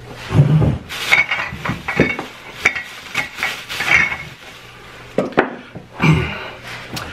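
Thin plastic shopping bag rustling and crinkling as packages are pulled out of it and set down on a table, with many sharp knocks and clicks and two duller thumps, one about half a second in and one near the end.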